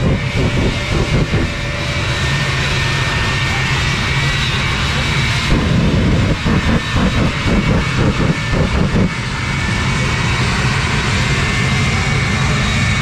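Jet truck's jet engine running loud in afterburner, a continuous rushing noise over a steady low hum, with rapid crackling at the start and again from about five and a half to nine seconds in.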